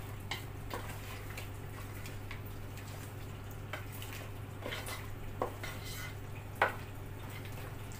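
Wooden spatula stirring thick chicken curry in a large metal pot, with scattered light knocks and scrapes of the spatula against the pot, the sharpest about two-thirds of the way through, over a steady low hum.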